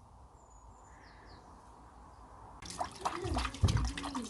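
Near silence with a few faint high chirps, then, about two-thirds in, water suddenly splashing and dripping in a shallow bath tub as young pigeons dip into it, with a few low thuds.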